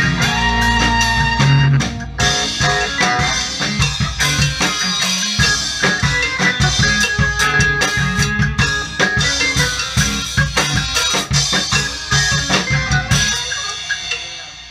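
A live band playing together in a small room: drum kit, electric guitars, keyboard and saxophones in a steady groove. Near the end the playing stops and the sound dies away.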